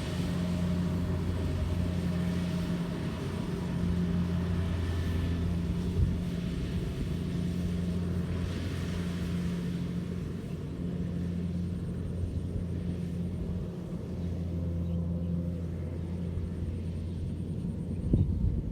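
Engine of a rice harvester running steadily at constant speed, a low even hum. There is a sharp knock about six seconds in and a few louder knocks near the end.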